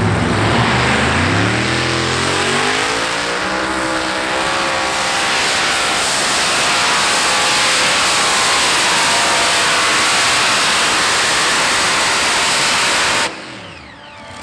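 Heavy Modified pulling tractor's engines at full throttle: the engine note climbs steeply in pitch over the first few seconds as it accelerates down the track, then holds a loud, steady flat-out noise. The sound drops away abruptly about a second before the end.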